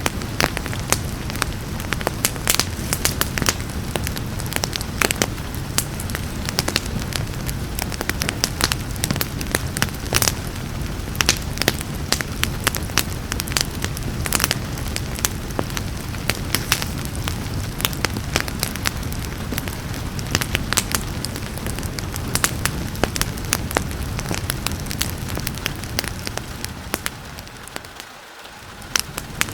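Wood fire in a fireplace crackling, with frequent sharp pops and snaps over a steady low rumble of burning, and rain mixed in. Near the end the whole sound briefly fades down and comes back up.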